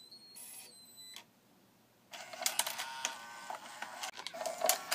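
Sony 10-disc CD changer mechanism running with its case open: a faint motor whir for about a second, a brief pause, then about three seconds of gear clatter and sharp clicks as the disc-loading carriage and levers shift along the magazine.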